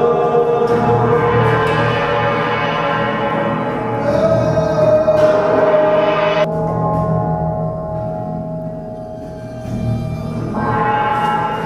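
Gong-like metal sound sculptures ringing in long, overlapping tones. A new clear tone comes in about four seconds in, the high ringing cuts off suddenly a little past the middle, and fresh tones come in near the end.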